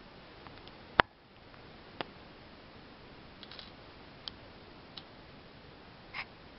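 A few sharp, short plastic clicks and taps as small Lego bricks are handled and pulled apart to open a tiny puzzle box, the loudest about a second in, over a faint room hiss.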